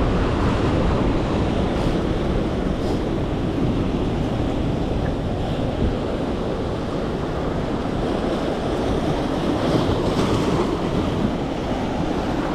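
Ocean surf washing steadily against jetty rocks, with wind rumbling on the microphone.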